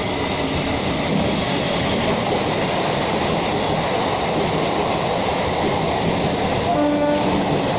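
Eastern Railway EMU local train passing close by: a steady loud rush of wheels rolling on the rails, with a brief pitched tone near the end.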